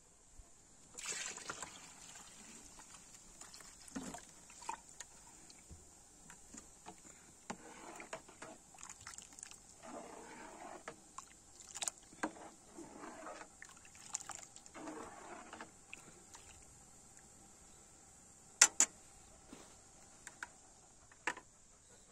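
Faint liquid sloshing and trickling in a metal cooking pot, with scattered clinks of a metal ladle against the pot. Two sharp clicks come close together near the end.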